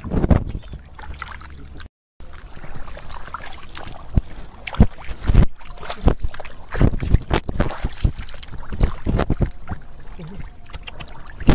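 Shallow paddy water splashing and sloshing irregularly as someone wades through it and dips a plastic basket and metal bowl into it. The sound cuts out to silence briefly about two seconds in.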